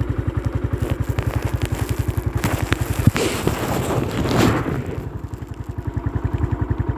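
Motorcycle engine running with a steady, rapid pulsing beat. Around the middle, a louder rushing noise swells with a sharp knock, then fades back to the engine.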